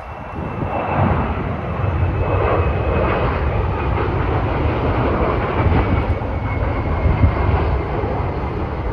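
Rear-engined twin-jet regional airliner on final approach passing overhead: a steady jet rumble with a faint high whine that slowly drops in pitch.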